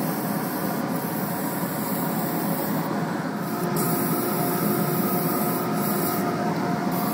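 Fine-grit sandpaper held by hand against a maple pepper mill blank spinning on a wood lathe: a steady hiss over a faint, even machine hum.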